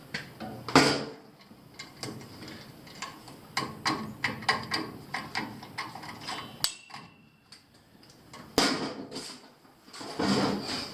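Clicks, taps and rustling of small hand-handling work on wiring and tools, with a sharper click about two-thirds of the way through and rustling bursts near the end.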